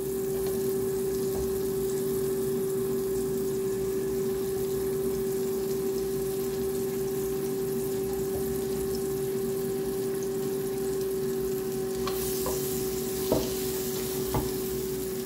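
Sliced onions sizzling in hot margarine and olive oil in a nonstick wok, over a steady hum. Near the end the sizzle grows brighter and a silicone spatula knocks twice against the pan as the onions are stirred.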